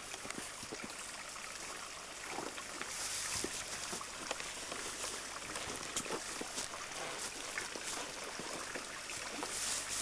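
A small stream running and trickling over stones, with scattered clicks and rustles of twigs and branches close by. The rustling swells briefly about three seconds in and again near the end.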